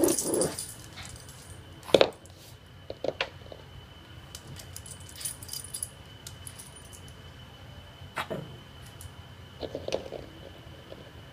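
A dog's collar tags jingling in short bursts as it moves its head, with a few sharp knocks, the loudest about two seconds in.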